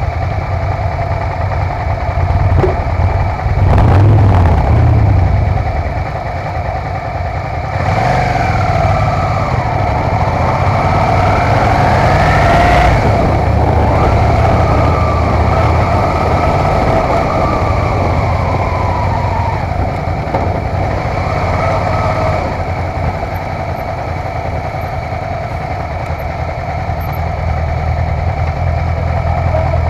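Motorcycle engines heard from a camera mounted low on one bike: a steady idle with a short rev about four seconds in, then the engine note climbing as the bikes pull away about eight seconds in, falling again as they slow, and settling back to a low idle near the end.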